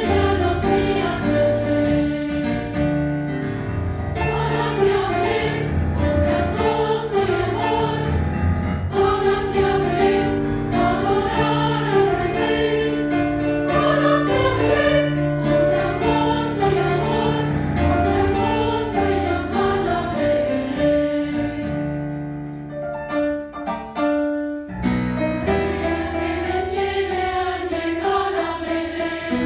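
A girls' choir singing a Spanish-language religious song together. The singing briefly thins and softens about three-quarters of the way through, then returns at full strength.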